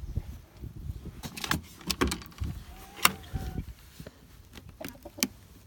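A scatter of sharp, irregular clicks and knocks, with a brief faint squeak-like tone about three seconds in.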